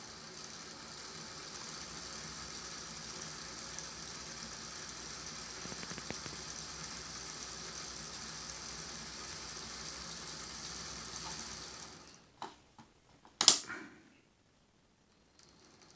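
Canon motor and MSC gearbox of a Finney O gauge A4 locomotive chassis running steadily on a rolling road, a light mechanical whirr with the driving wheels and rollers turning. About twelve seconds in the running stops, followed by a few clicks and one sharp, loud clack.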